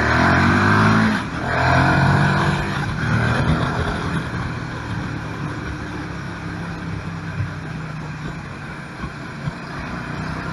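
KTM 1290 Super Duke R's V-twin engine accelerating hard, rising in pitch with a brief break about a second in, rising again, then easing off to a quieter steady running note under wind noise.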